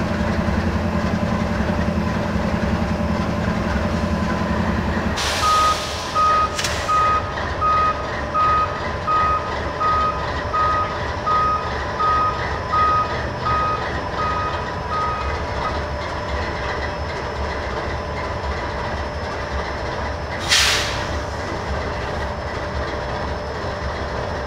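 Diesel locomotive rumble from a standing rail train. Its heavier note drops away about five seconds in, with short bursts of air hiss. An electronic beep repeats about every three-quarters of a second for some ten seconds, and another air hiss comes near the end.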